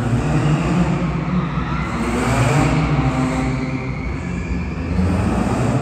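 Car engines running at a car show, the engine pitch shifting up and down as the cars move.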